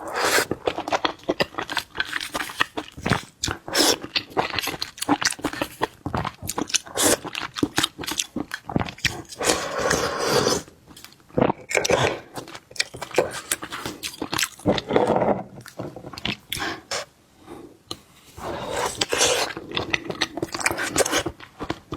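Close-up eating of shellfish: chewing and crunching, with many sharp clicks and scrapes of shell on shell, plus a few noisy stretches of about a second each.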